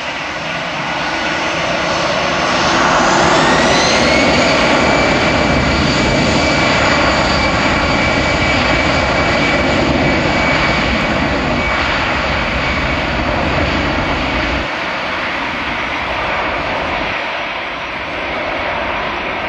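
Airbus A319's twin CFM56 turbofan engines spooling up, with a rising whine about three seconds in, then running loud and steady with a high whine on top, as at takeoff thrust. The low rumble thins out near the end as the jet moves away.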